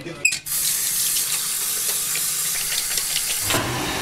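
A short sharp clunk, then water running from a tap into a sink; about three and a half seconds in, an electric hand dryer starts blowing with a steady motor hum.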